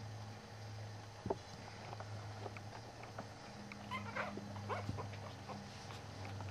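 Yorkshire terrier puppy giving a cluster of short, high squeaks and whimpers about four seconds in, over a steady low hum.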